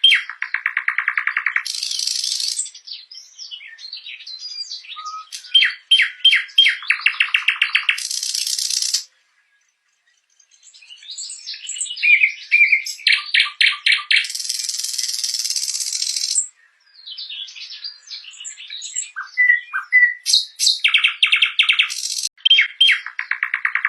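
Nightingale singing a run of varied phrases. These are fast repeated rattling notes, short slurred whistles and hissy buzzing trills, broken by brief pauses and one silence of about a second and a half roughly nine seconds in.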